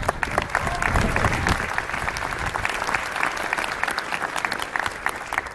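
Audience clapping, many hands at once, dying away near the end.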